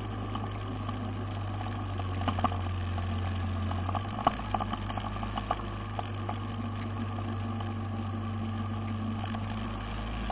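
Engine of the recording vehicle running steadily while driving, its low note shifting a couple of times, with scattered clicks and rattles, the loudest about four seconds in.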